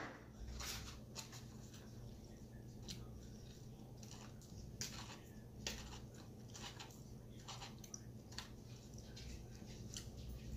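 Soft eating sounds: chewing salad, with a fork clicking and scraping in a plastic takeout salad tray as short scattered clicks. A low steady hum runs underneath.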